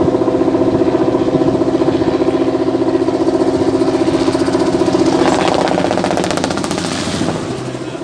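An engine runs steadily with a fast pulsing beat. About five seconds in it eases off and changes, and a rapid fluttering comes in for a couple of seconds.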